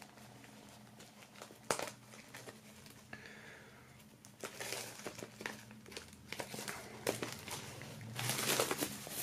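Clear plastic shrink-wrap crinkling as it is pulled off a vinyl LP sleeve, in scattered sharp crackles that grow busier and louder from about halfway through.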